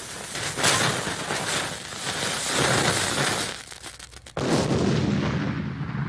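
Dynamite explosions. One blast's rumble fills the first three and a half seconds and dies down. A second blast starts suddenly about four and a half seconds in, then fades into a long low rumbling tail.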